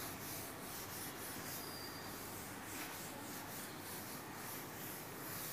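Chalkboard being wiped with a cloth duster: a faint run of back-and-forth rubbing strokes.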